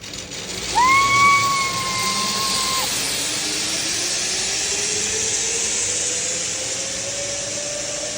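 Zipline trolley pulleys running along the steel cable: a steady whirring hiss with a faint whine that slowly rises in pitch. A clear high held tone sounds for about two seconds near the start.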